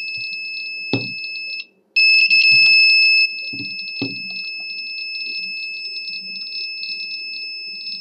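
Electronic alarm buzzer sounding one steady, high-pitched tone: the alarm raised by the Wi-Fi relay circuit. The tone cuts out for a moment about two seconds in, then resumes, quieter after about three seconds, with a few soft knocks from handling.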